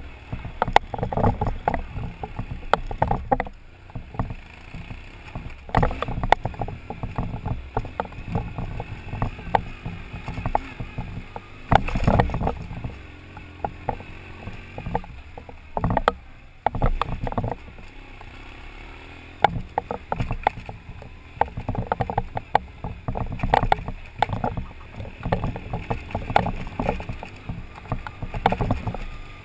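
BMW GS adventure motorcycle riding a rough, rocky dirt track: a low engine rumble under frequent knocks and rattles as the bike and the helmet-mounted camera jolt over the stones, with wind noise on the microphone.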